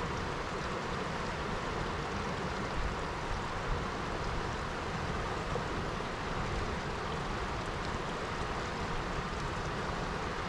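River water rushing steadily over rapids and swirling through a pool, an even unbroken noise with a low rumble underneath.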